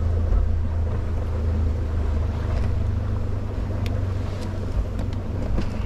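Boat motor running with a steady low drone, a few light clicks over it in the second half.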